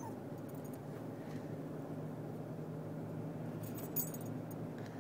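Steady hum of a moving car heard from inside the cabin, with a brief light metallic jingle about four seconds in.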